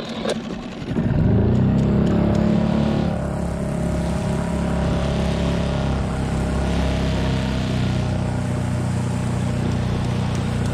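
Small boat's outboard motor revving up about a second in, then running steadily under throttle as the skiff moves through the water.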